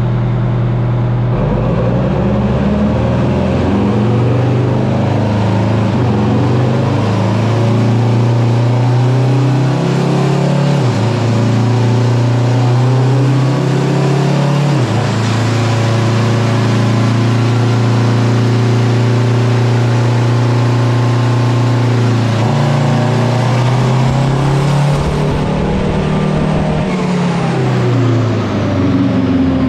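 Semi-truck diesel engine running hard under load on a chassis dynamometer. Its steady drone shifts pitch in steps a few times and winds down near the end.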